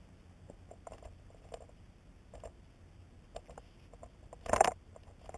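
Faint rustling, rubbing and small clicks of a climbing rope being handled while a figure eight on a bite is tied in it, with a louder, brief scuff of rope about four and a half seconds in.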